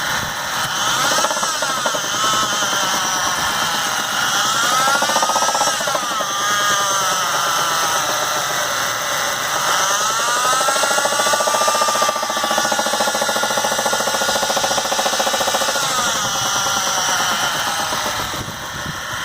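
2011 Jeep Wrangler's 3.8-litre V6 engine running and being revved up and down several times, its pitch rising and falling with each blip. A knock keeps time with engine speed, which the owner thinks may be an engine mount problem.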